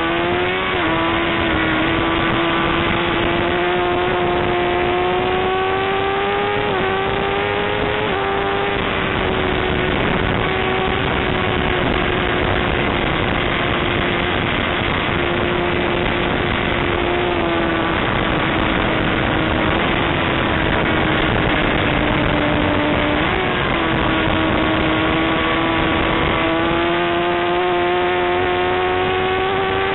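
Suzuki GSX-R1000 inline-four sport-bike engine under hard riding on a race track, with a steady rushing noise underneath. The engine note climbs, drops twice at gear changes around seven and eight seconds in, eases off through the middle, gives a short blip a little past twenty-three seconds, then climbs again near the end.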